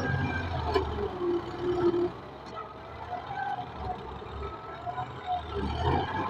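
Tractor engine running with a steady low drone; short higher tones come and go above it.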